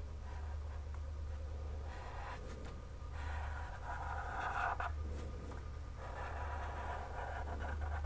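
Felt-tip marker tracing an outline on paper: the tip scratches across the sheet in several separate strokes, over a low steady hum.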